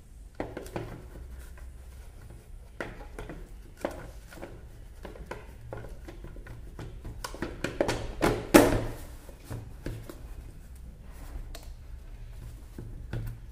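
Plastic housing of a Kärcher K2 pressure washer being handled and fitted together: scattered clicks and knocks of plastic on plastic, with a louder knock about eight and a half seconds in.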